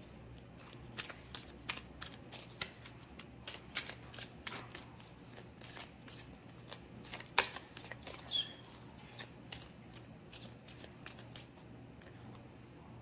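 Tarot cards being shuffled and handled: irregular light clicks and snaps, with a sharper one about seven seconds in and a brief high squeak a second later.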